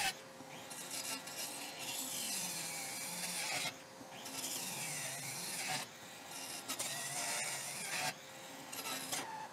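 Parkside cordless circular saw, run on a 2Ah battery, cross-cutting a wooden beam against the grain. It makes several cuts, each a few seconds long with short breaks between, and its whine dips and wavers as the blade takes load.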